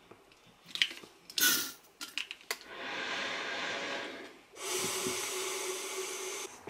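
A metered-dose steroid inhaler is puffed into an AeroChamber spacer with a short hiss about a second and a half in. Two long breaths follow, drawn through the spacer's mouthpiece, and a steady tone runs through the second breath.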